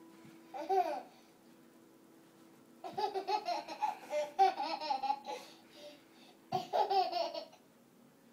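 High-pitched laughter in three bouts: a short burst about half a second in, a long run of laughing from about three seconds to five, and another burst near the end.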